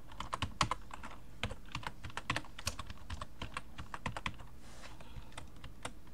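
Typing on a computer keyboard: irregular runs of quick key clicks as a short word is typed.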